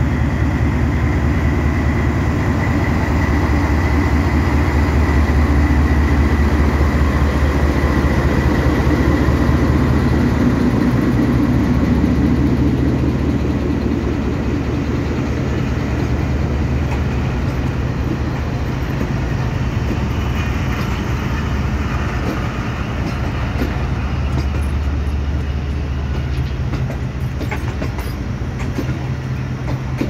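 Pakistan Railways GEU-20 diesel-electric locomotive pulling away, its diesel engine running loud and steady as it passes close. In the second half the passenger coaches roll past and the engine fades, with the wheels clicking over the rail joints.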